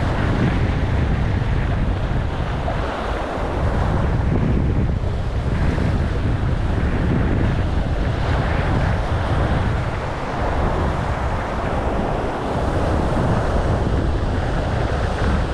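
Sea waves breaking and washing against a concrete-block breakwater, with heavy wind buffeting on the microphone.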